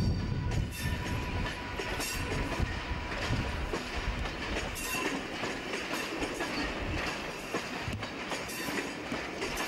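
Passenger coaches rolling past at speed, their wheels clicking over the rail joints in a repeating clickety-clack. A low rumble is heaviest in the first few seconds and eases off after about four seconds.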